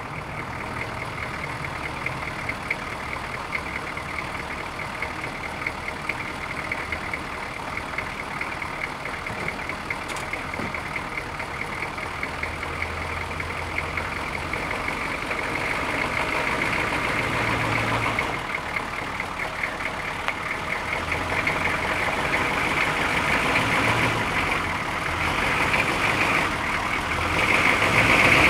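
Suburban's engine idling on a cold start after sitting for a few weeks, growing a little louder toward the end.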